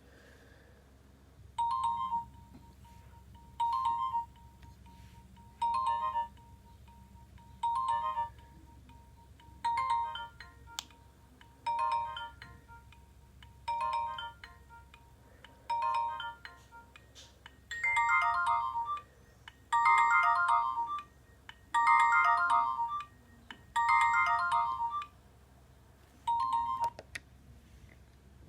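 Nokia 2310 mobile phone playing a ringtone through its speaker: a short electronic phrase of notes repeated about every two seconds, becoming fuller and louder about two-thirds of the way in, with a shorter final phrase near the end.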